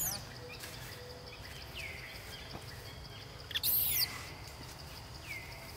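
Repeated high, falling calls over a faint steady high tone, with one louder shrill squeal about three and a half seconds in.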